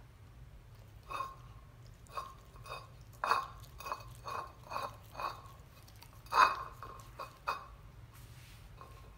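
A German Shepherd gnawing and mouthing a partly frozen raw NY strip steak on a plate. It makes a string of sharp clicks and knocks as teeth and hard meat strike the plate, several of them ringing briefly. The loudest knock comes about six seconds in.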